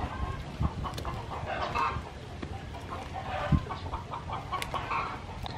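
Chickens clucking, with a couple of dull knocks.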